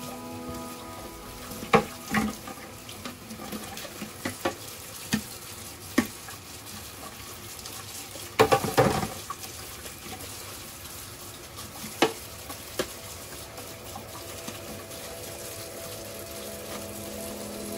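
Kitchen tap running steadily into a sink during dishwashing, with scattered clinks and knocks of dishes being handled against the sink and other dishes, the loudest cluster about halfway through.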